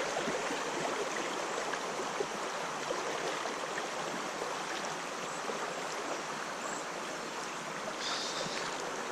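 Fast-moving river water rushing steadily through a choppy riffle.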